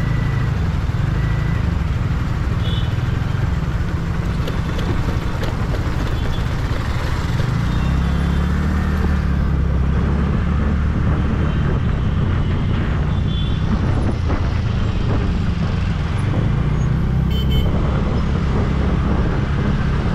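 Scooter ridden through city traffic, its engine and the road making a steady low rumble that grows stronger about eight seconds in as it picks up speed, with the noise of surrounding traffic.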